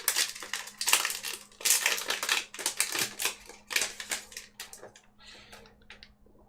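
Yu-Gi-Oh booster pack's foil wrapper being crinkled and torn open by hand: a run of rough, irregular rustling and ripping that dies away about five seconds in.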